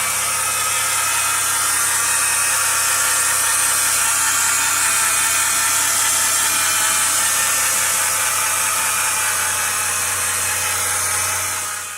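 2010 Chrysler Town & Country 3.8L V6 running with a loud, steady whirring whine from its failing original alternator, several high tones held over a hiss. The owner takes it for a bad alternator but suspects it could be a bearing on one of the pulleys or the belt tensioner. The sound fades out near the end.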